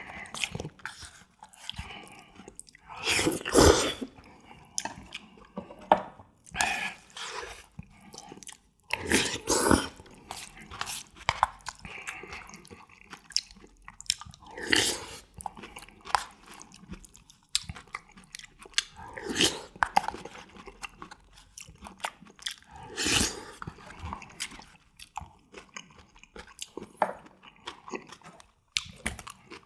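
A person eating jjajangmyeon noodles in black bean sauce close to the microphone: steady wet chewing, with a louder slurp of noodles every three or four seconds.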